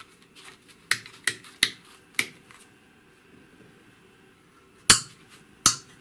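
Miniature metal toggle switches flipped by hand: four sharp clicks in quick succession starting about a second in as the zone-code switches are set, then two louder clicks near the end as the validate switch is flipped on and off.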